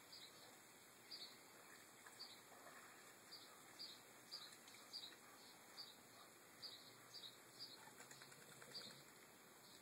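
Faint bird chirps, short and high, repeated at uneven intervals roughly every half second to a second, over a near-silent background.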